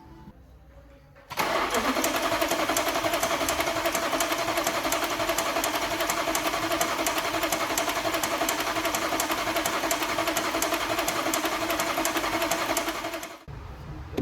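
A steady mechanical running sound with a fast, even ticking rhythm, starting suddenly about a second in and cutting off abruptly after about twelve seconds.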